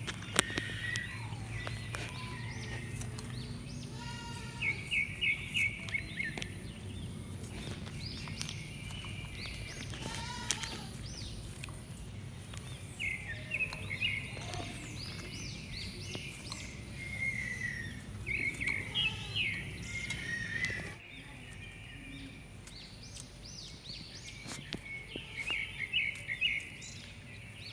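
Small birds chirping and calling in short repeated phrases, again and again, over a steady low background hum.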